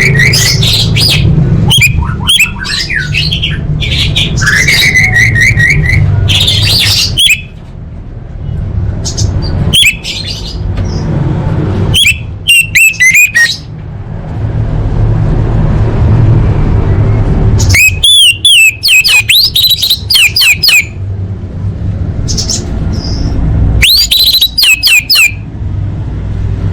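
Orange-headed thrush singing in short bursts of rapid, varied whistled phrases with brief pauses between them, over a steady low hum.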